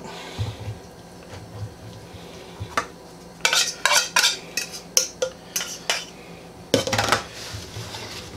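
A metal fork and an opened tin can with its lid clinking and scraping against each other and on a plastic cutting board: scattered sharp clicks and knocks, thickest from about three and a half to six seconds in, with another short cluster near the end.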